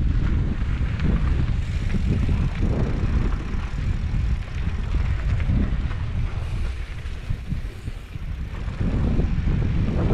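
Wind rumbling and buffeting on the microphone of a moving rider. It eases off briefly a little past the middle, then comes back up near the end.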